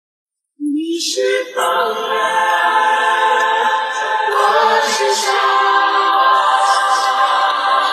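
Background music with sustained sung voices, cutting in abruptly about half a second in after silence.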